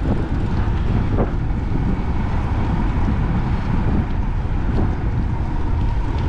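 Wind buffeting the microphone of a moving bicycle rider going into a headwind, a steady low rumble.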